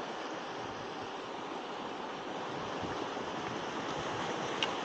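Sea surf, a steady rushing wash that grows slightly louder toward the end, with one short tick near the end.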